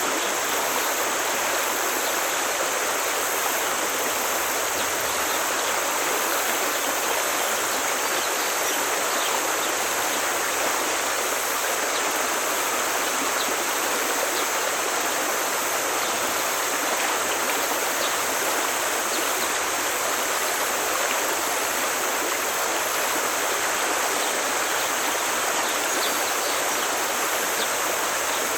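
Forest stream flowing and rushing steadily over rocks, an even splashing hiss without pause.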